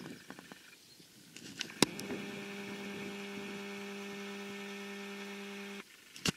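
A sharp click, then a steady low electric hum that holds one pitch for about four seconds and cuts off suddenly, followed by another click.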